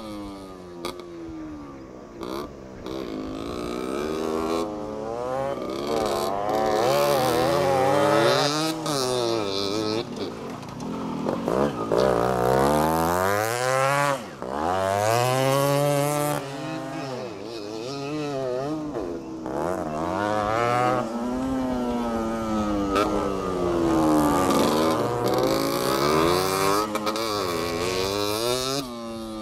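Motorcycle engine revving up and easing off around a dirt track, its pitch rising and falling repeatedly with throttle and gear changes, loudest as the bike passes close in the middle.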